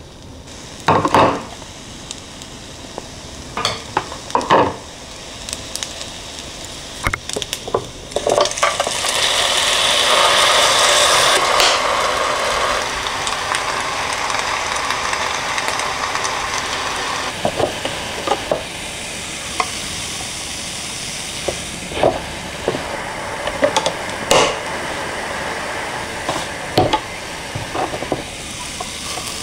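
Croissant dough sizzling inside an electric waffle maker as croffles cook. The hiss starts about eight seconds in and is loudest for the next few seconds, then settles to a steady sizzle. Sharp clicks of metal chopsticks on the plates and knocks from handling the iron come before it and through the second half.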